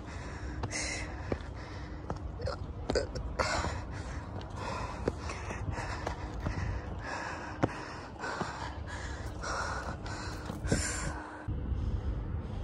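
A hiker breathing hard on a steep climb, with a hissing breath about once a second. Sharp clicks of footsteps on loose rock fall between the breaths, over a steady low rumble.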